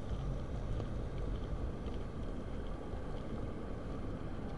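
Steady low rumble of outdoor background noise, with faint light ticks above it.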